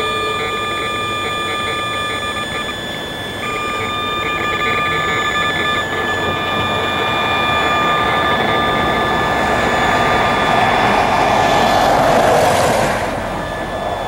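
Acoustimeter RF meter's speaker sounding the cell tower's signals: several steady high tones, some of them stuttering in a fast pulse. Over the second half a passing vehicle's rushing noise swells up, is loudest about 12 seconds in, and falls away quickly.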